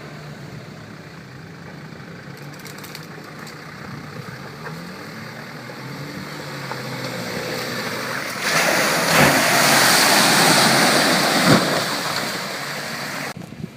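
Daihatsu Fourtrak 4x4's engine running steadily off-road, then a loud rush of splashing water and mud for about five seconds as it ploughs through, cutting off suddenly near the end.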